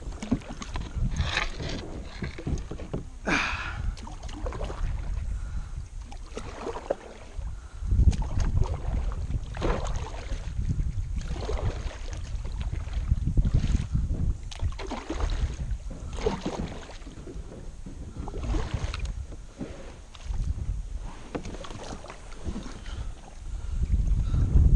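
Double-bladed kayak paddle dipping and splashing into shallow river water, alternating strokes every second or two, over a low rumble of wind on the microphone that swells at times.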